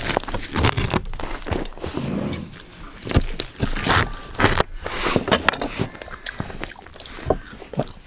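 Irregular crunches and sharp knocks in quick succession.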